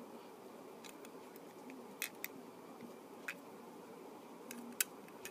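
Small die-cast toy tow truck handled in the fingers: a few sharp, scattered clicks of its metal and plastic parts over a faint steady hiss, the loudest near the end.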